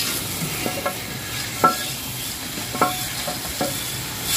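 A high-pressure water jet hissing steadily as it sprays over bare metal engine parts: an oil pan and camshafts. Four short, sharp clinks come about a second apart.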